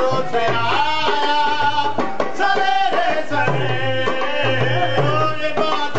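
Two men's voices singing a naat, a devotional Urdu song in praise of the Prophet Muhammad, to a hand-played wooden barrel drum beating a steady rhythm.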